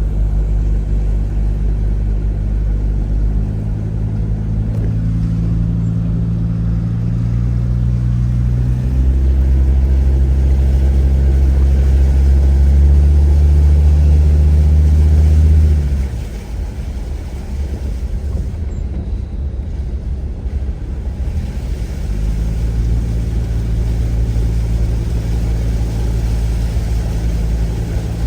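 A vehicle engine running close by. Its note climbs and gets louder through the first half, then cuts off suddenly a little past halfway. A rushing noise fills several seconds before a steady engine note returns.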